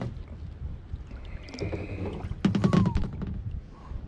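Handling sounds in a plastic kayak as a just-landed spotted bass is lifted aboard and gripped: a cluster of knocks and clatter about two and a half seconds in, over a steady low rumble of wind and water on the hull.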